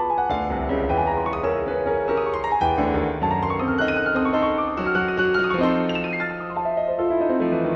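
Background piano music, a continuous flow of notes moving up and down in runs.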